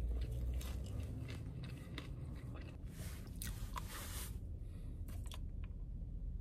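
Crunchy ice cream cone being bitten and chewed: a run of crisp crunches, thickest around three to four seconds in, that stop a little after five seconds. A low steady hum runs underneath.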